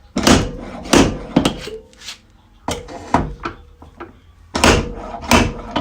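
Repeated sharp metal knocks and thuds as a dented car body panel is worked back out, about seven irregular blows, some leaving a short metallic ring.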